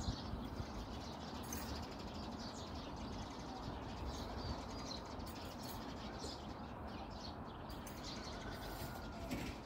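A few faint, scattered bird chirps over a steady background hiss.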